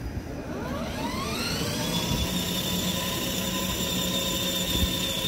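Electric drive motor and gearbox of a ride-on Nissan GT-R toy car whining. The whine rises in pitch over the first couple of seconds as the car speeds up, then holds steady as it cruises.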